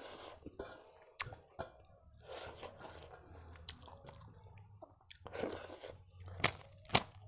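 A person chewing a mouthful of rice and buffalo meat at close range, with a few sharp crunches near the end as a crisp papad wafer is bitten.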